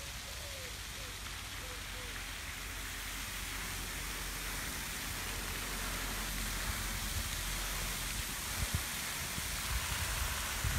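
Pond fountain jet spraying water that falls back onto the pond: a steady hiss and patter of falling water, growing slightly louder.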